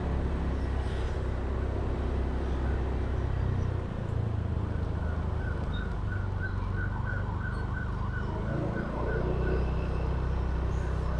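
Motorcycle engine running steadily while riding, with road noise; the engine note drops about four seconds in and picks up again near the end. A rapid string of short high beeps sounds in the middle.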